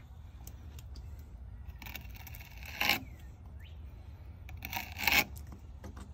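Fillet knife scraping as it cuts through bluegill fillets against a cutting board: three short scraping strokes, the loudest about three and five seconds in, over a steady low hum.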